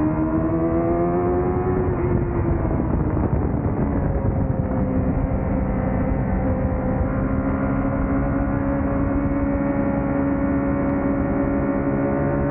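Honda CBR1000RR-R Fireblade's inline-four engine running hard on track, its pitch rising for the first two seconds, falling sharply about two seconds in, then holding steadier and climbing again near the end.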